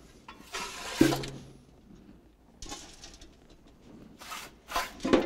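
Ashes being scooped out of a fireplace: a shovel scrapes across the firebox floor in several short strokes, with a sharp knock about a second in.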